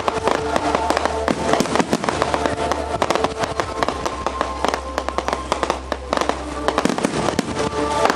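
Fireworks display: a dense run of rapid crackling bursts and bangs, with music playing underneath.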